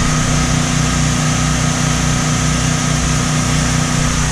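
Two gasoline generators running steadily under load, with an even engine drone and a regular low pulse.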